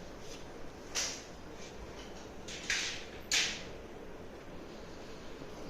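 A few short scraping, rustling handling sounds, about a second in and twice more around the middle, as dishwasher salt and the salt reservoir under the lower rack are worked by hand.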